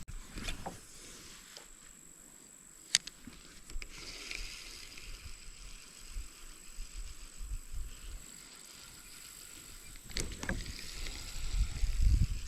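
Faint steady hiss of creek water with a few sharp clicks, the clearest about three seconds in. Low rumbling knocks build near the end.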